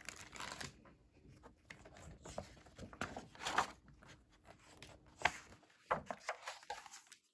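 Paper rustling and handling noises from a picture book being opened and its pages turned: a run of irregular rustles and soft taps.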